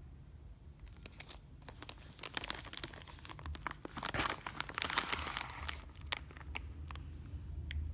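Packaging being handled and unwrapped: crinkling and tearing with many sharp little clicks, busiest about four to five seconds in.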